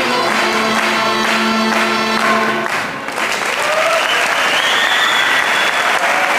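A piece of music ends on a held low note about two and a half seconds in, then an audience applauds, with a few voices calling out over the clapping.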